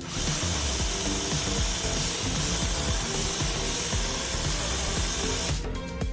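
Cordless pressure washer gun spraying a jet of water onto a car window: a steady, loud hiss of spray that cuts off sharply about five and a half seconds in.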